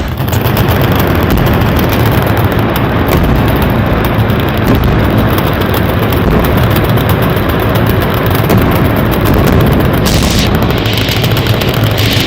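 Loud, continuous, distorted din of gunfire and explosions in raw war footage of an airstrike and bombardment, with a brief hissing flare near the end.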